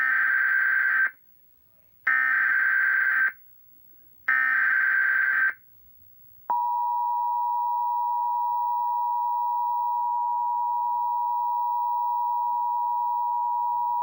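Emergency Alert System SAME header: three bursts of screeching data tones, each about a second long with short gaps between them. About halfway through, the steady two-tone EAS attention signal starts and holds to the end. Together they mark the start of a new emergency alert broadcast.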